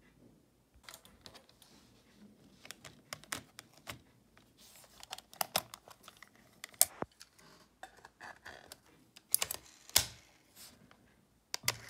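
The casing of a Panasonic RQ-SX32 portable cassette player being fitted back together by hand: a run of light clicks and taps, the loudest a sharp snap about ten seconds in as the lid is pressed shut.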